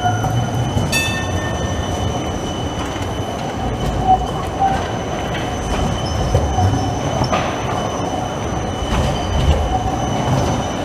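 Articulated electric tram rolling around a curve in the track, its wheels squealing on the rails in a steady high whine over a low rumble. A brief higher squeal comes about a second in, and a few sharp clacks as the wheels pass over track joints.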